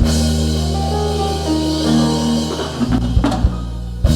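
Church worship band backing music: steady held low chords with a few drum hits near the end.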